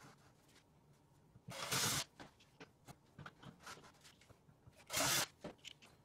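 Push-in caster stems forced into holes in a plastic bucket's bottom: two short rasping plastic scrapes, one near the start and one near the end, with faint handling clicks between.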